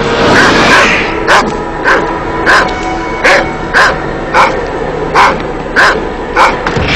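A dog barking over and over, nine barks in three sets of three, after a short rush of noise in the first second. Steady held tones run underneath.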